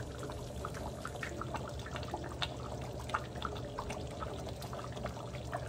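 Thick kare-kare peanut sauce bubbling in a steel pot on a gas burner: many small, irregular pops over a steady low hum.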